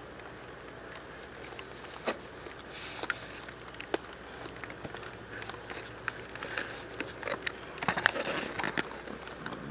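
Scattered raindrops pattering and tapping on a surface over a low hiss, the taps growing busier about eight seconds in.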